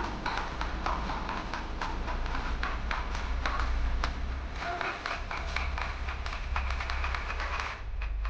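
Irregular sharp taps of a mallet striking a wood-carving chisel cutting into teak, a few per second, stopping shortly before the end.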